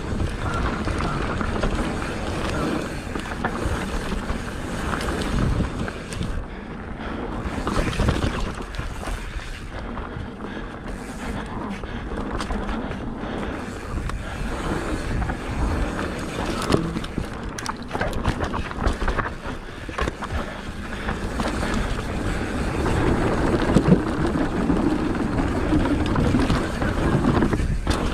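Mountain bike riding down a dirt singletrack: tyres rolling over the trail, with scattered clicks and knocks from the bike rattling over bumps, and wind on the microphone.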